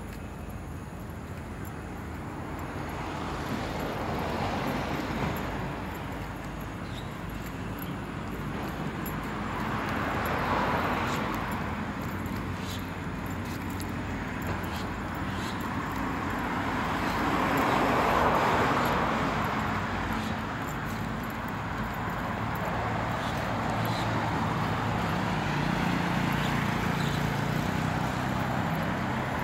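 Road traffic: several vehicles pass one after another, each swelling up and fading away, the loudest about two-thirds of the way through, with a low engine hum near the end.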